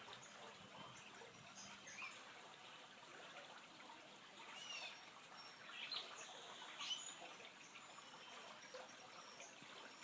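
Faint shallow river water trickling over rocks, with a few short bird chirps scattered through.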